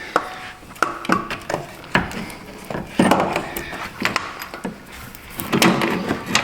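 Hand tools and metal parts clinking and knocking during work on an engine's belt tensioner: irregular clicks and clanks, some with a brief metallic ring.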